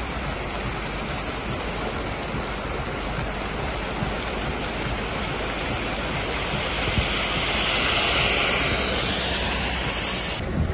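Heavy rain pouring down onto a wet street, a steady hiss of downpour that swells louder for a few seconds past the middle.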